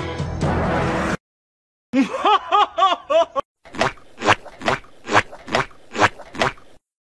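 Background music that cuts off about a second in; after a short gap, a person laughing in quick rising-and-falling bursts, then breathy laughs at about two a second.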